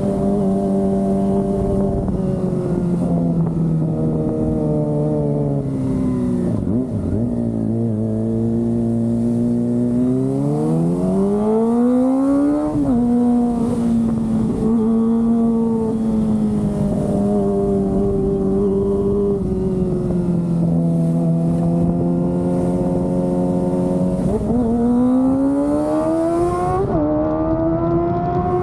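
Kawasaki ZX-25R's 250 cc inline-four engine running while riding. The pitch sinks as it slows, then climbs steadily under acceleration and breaks briefly at a gear change, holds even for a while, and rises again near the end with another quick shift.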